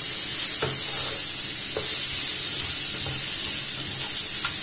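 Sliced bell peppers, carrots, zucchini and garlic sizzling steadily in a nonstick frying pan while a wooden slotted spatula stirs them, with a few soft knocks and scrapes of the spatula against the pan.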